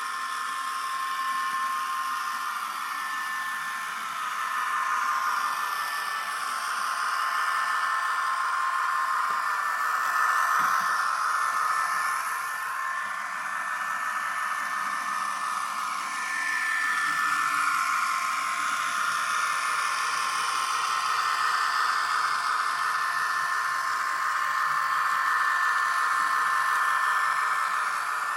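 Sound decoder in an N gauge model of a Voyager diesel multiple unit playing its engine sound through a tiny speaker: a hissing whine with a steady high tone, swelling louder and softer several times.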